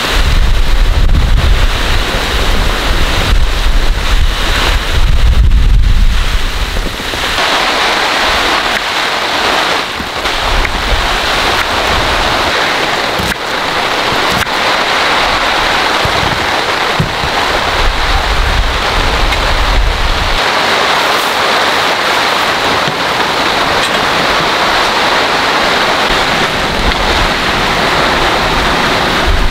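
Heavy rain pouring down steadily, with gusts of wind buffeting the microphone in deep rumbles, strongest in the first several seconds and again twice later.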